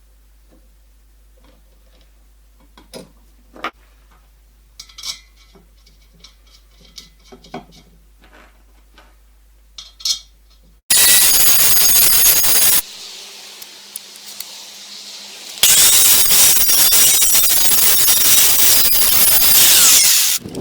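Light metallic taps and clinks of parts being handled, then a power grinder working steel: a loud, harsh grinding noise that starts abruptly, eases to a lower steady running sound for a few seconds, then grinds loudly again before cutting off near the end.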